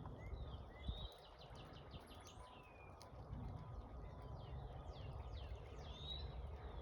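Faint birdsong: many short chirps and quick downward-sweeping whistled notes over a low rumble.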